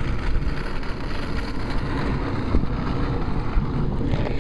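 Wind rumbling on the microphone of a camera mounted on the front of a bicycle riding at about 15 mph: a steady, gusty low rumble.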